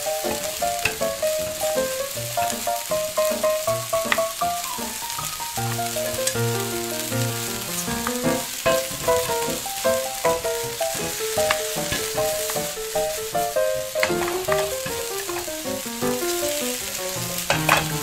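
A small stainless saucepan of broth sizzling over a miniature burner as a little spoon stirs it and clicks against the metal pan, under light instrumental background music.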